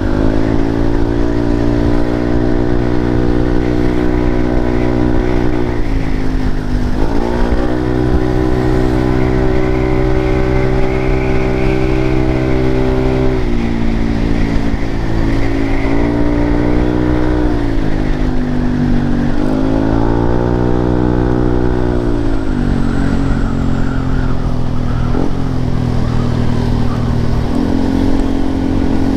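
Yamaha Lexi scooter's single-cylinder engine running through an Arrow aftermarket exhaust. The engine note climbs quickly, holds steady for several seconds, then falls back, several times over, as the throttle is opened and closed.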